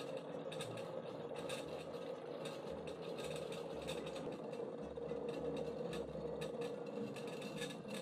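Coffee bubbling and crackling in the glass brewing chamber of a balancing siphon coffee maker, with many small pops over a steady hiss.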